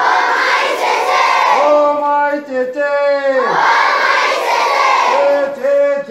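A group of schoolchildren chanting a rhyme in unison: long drawn-out sung syllables broken by two loud group shouts, one at the start and one about halfway through.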